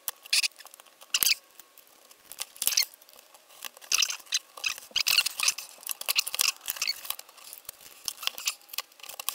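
Plastic parts of a speaker's casing being handled and pried at during a teardown: irregular clicks, taps and short scrapes of plastic, busiest in the middle.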